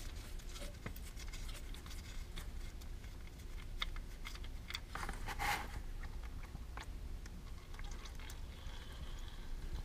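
Faint clicks and scraping of fingers unscrewing a motorcycle's side engine-oil drain bolt, with a short rush of sound about five and a half seconds in. Then the used oil runs in a thin stream into a plastic drain pan.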